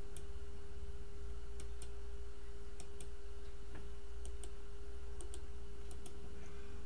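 Computer mouse buttons clicking, mostly in quick pairs about once a second, over a steady hum.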